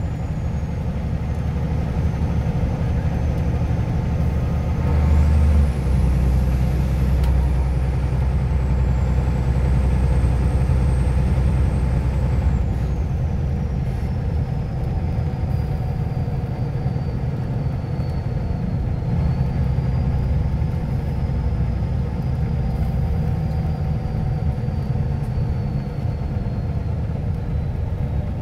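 Scania OmniLink I city bus's engine and drivetrain running as the bus drives along, heard from inside the passenger cabin: a steady low drone that swells about five seconds in, with a thin high whine that rises and falls in pitch.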